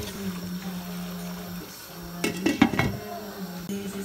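Cookware clattering against the curry pot for about a second, a little over two seconds in, as the glass lid goes on. A slow sung melody plays in the background.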